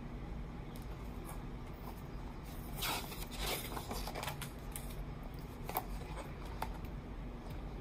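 A page of a hardcover picture book being turned, a paper rustle lasting about two seconds starting about three seconds in, followed by two short light clicks as the book is handled.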